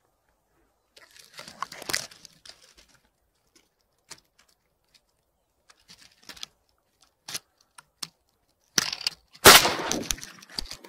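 Crackling and rustling movement noise, then near the end a single loud shotgun shot from an MP-155 shotgun that fades out over about a second. This is the shot that downs the drake.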